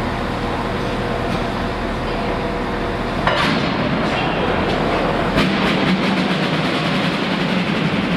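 LNER B1 4-6-0 steam locomotive getting under way: a sudden blast of hissing steam a little over three seconds in, then a sharp exhaust beat about five seconds in, followed by a run of quicker beats.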